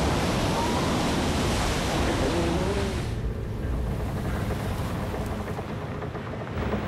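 Sea sound effects: a loud rushing wash of water and spray from a ship blowing apart. About three seconds in it gives way to a quieter wash of waves and a low rumble as a submarine's bow cuts through the sea.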